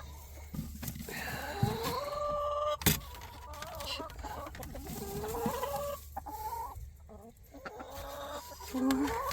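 Chickens clucking, with several drawn-out calls that rise and fall in pitch. There is a sharp knock about three seconds in.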